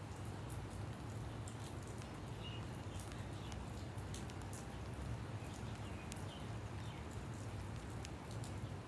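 Scattered raindrops landing on nearby surfaces as sparse, irregular light ticks over a steady low hum.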